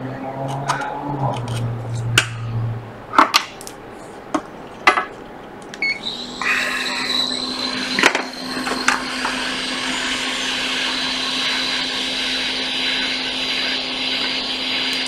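Hot-air rework station blowing steadily from about six seconds in, a constant rushing hiss with a low hum and a high whine, heating a donor logic board to lift capacitors off it. Before it starts, a few sharp clicks and taps of tools on the bench.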